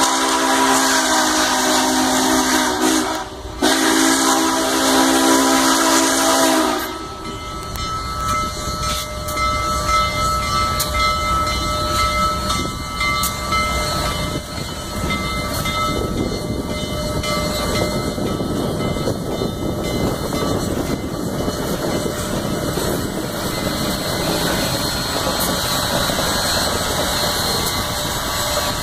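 Union Pacific 844's steam whistle blowing, a long blast, a brief break about three seconds in, then a second blast that cuts off about seven seconds in. After that the 4-8-4 steam locomotive and its tender roll past with a steady rumble and hiss.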